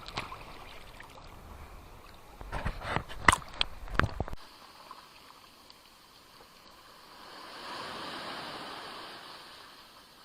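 Small sea waves splashing at the shore with wind rumbling on the microphone, a cluster of sharp splashes between about two and a half and four seconds in. After an abrupt change, one wave washes in softly, swells and draws back.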